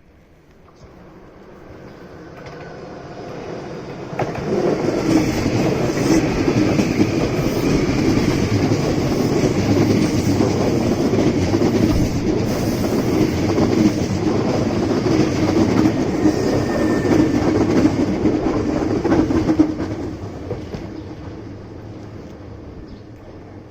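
Hankyu 7300 series electric train passing by: it builds up over about four seconds, runs loud for about fifteen seconds, then fades away near the end.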